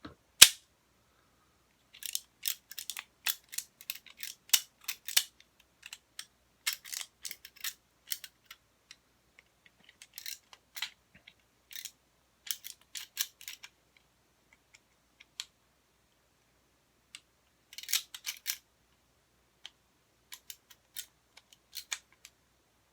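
3D-printed plastic Tic Tac launcher being worked by hand: one loud sharp snap just after the start, then clusters of light plastic clicks and rattles as its trigger and parts are moved.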